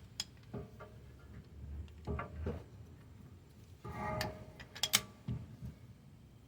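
Scattered clicks and clinks of hand tools on metal brake parts, with a short metallic scrape about four seconds in.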